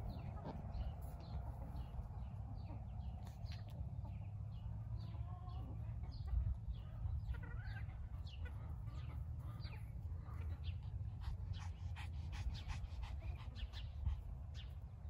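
Backyard hens clucking as they forage, with many short high chirps scattered throughout and a steady low rumble underneath.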